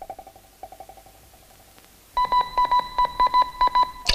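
Electronic beeping sound effect: a faint, rapidly pulsing tone at first, then about two seconds in a louder single-pitched beep sounding on and off in pulses of uneven length, like a signal being keyed.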